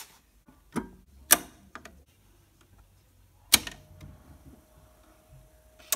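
Handling noises of a picture-disc vinyl record being taken from its paper sleeve and laid on a Dual turntable: a few sharp clicks and knocks, then a loud click about three and a half seconds in as the start control is pressed, followed by a faint steady hum and one more click at the very end.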